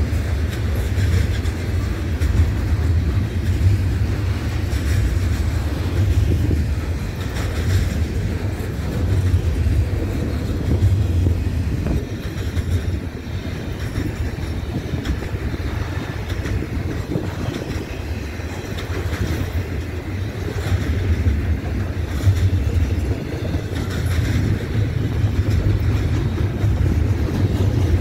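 Double-stack intermodal well cars loaded with shipping containers rolling past: a steady low rumble of steel wheels on rail, with faint clickety-clack from the wheels.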